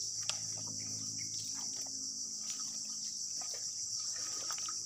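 A steady, high-pitched chorus of insects chirring, with a few faint clicks.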